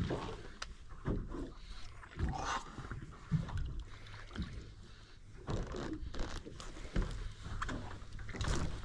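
Handling noise on a small fishing boat while a fish is fought on rod and reel: irregular scrapes and knocks over a low steady rumble.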